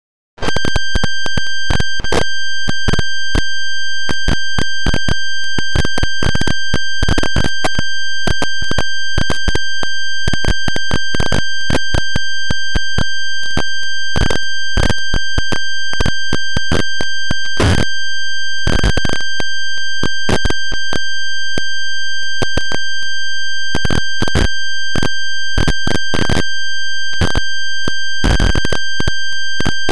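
A loud, steady, high-pitched electronic tone with a row of overtones above it, the 'broken TV' sound effect. It starts about half a second in and is broken throughout by irregular sharp crackles and clicks.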